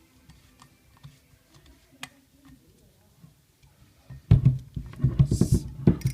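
Faint scattered clicks, then from about four seconds in loud knocking and rattling as metal parts and tools are handled during a bicycle hub change.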